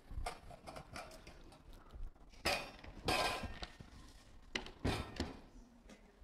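Handling noise as a foam-insulated plywood box is lifted onto a table and opened: a few knocks and a short scraping rustle about three seconds in, with more knocks near the five-second mark.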